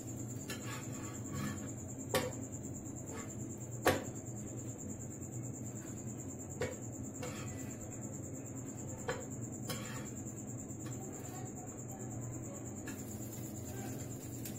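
Metal spatula knocking and scraping against an iron tawa while a roti sandwich is pressed and turned: a handful of sharp clinks, the loudest about two and four seconds in, over a steady low hum.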